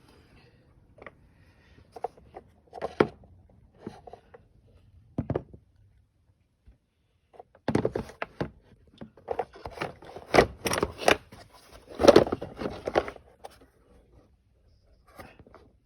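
Plastic air filter box of a BMW 320d rattling and knocking in irregular bursts at idle, sparse at first and thickest from about eight to thirteen seconds in: the airbox buzzing against its mountings as the idling engine shakes it.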